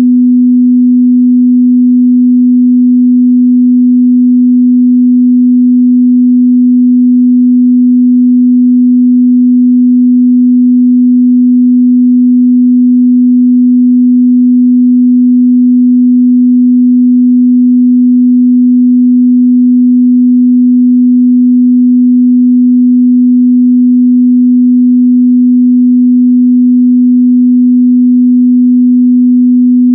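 A steady, unbroken 248 Hz pure sine test tone, a single mid-bass hum with no overtones, used to check how a speaker or headphones reproduce that frequency.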